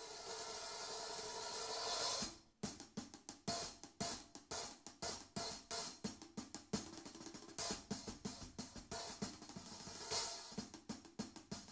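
Zultan Heritage hand-hammered B20 bronze cymbal played with sticks: a sustained wash swells and is cut off sharply about two and a half seconds in, then a fast run of crisp stick strokes, about four to five a second.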